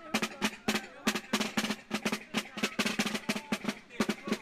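Parade drummers playing snare and bass drums in a rapid, even beat of about six or seven strokes a second.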